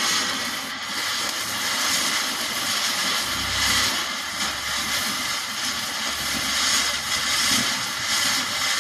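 Large outdoor bonfire burning with a steady hiss and crackle, with low wind rumbles on the microphone now and then.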